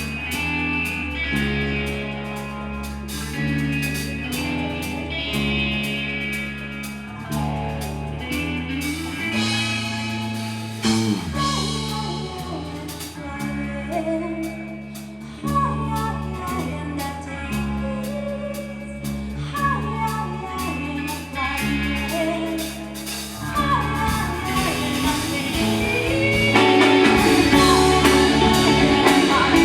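Live band playing: electric guitar over held, stepping bass notes, with singing. The band swells louder near the end.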